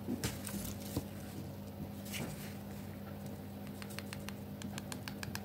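A metal nail pusher scraping in a small jar of nail glitter and tapping against a plastic nail-tip stick, with a quick run of light clicking taps near the end as loose glitter is knocked off the tip.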